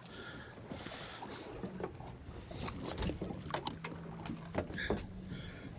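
Fishing boat at sea: water sloshing against the hull with scattered light knocks and clicks of gear on deck, and a faint low hum through the middle.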